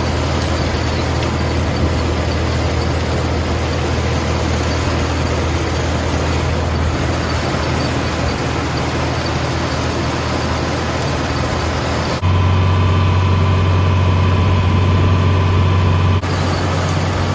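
Farm tractor engine running steadily. About twelve seconds in it suddenly gets louder and deeper for a few seconds, then drops back as suddenly.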